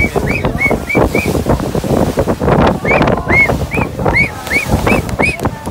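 Water rushing and splashing along the hull of a moving boat, with wind buffeting the microphone. Over it come two runs of short, high chirps, each rising then falling, about three a second; the second run starts near the middle.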